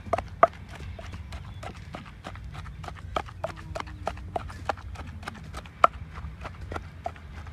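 Pestle pounding in a mortar: quick, uneven knocks at about four to five a second, a few struck harder than the rest.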